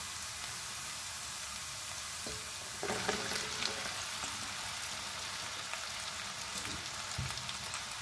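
Sliced onions and green chillies frying in hot oil in a pan, a steady sizzle. About three seconds in the sizzle grows louder and more crackly.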